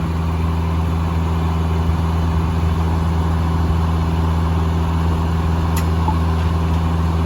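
Engine driving a Foley Belsaw circular sawmill, running at a steady speed with no change in pitch.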